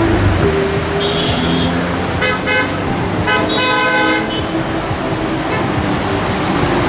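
Street traffic with car horns honking: two short horn blasts about two and a half and three and a half seconds in, over steady engine and road noise.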